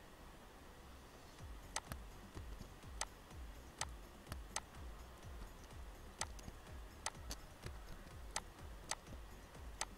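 Computer mouse and keyboard clicking at an irregular pace, about a dozen sharp clicks, some in quick pairs.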